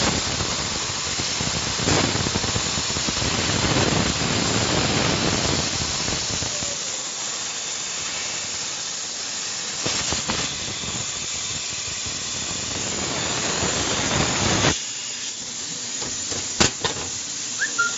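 CO2 laser cutting machine cutting through wood, with a steady hiss of air blowing from its cutting head. The hiss drops away sharply about fifteen seconds in, and a couple of sharp clicks follow.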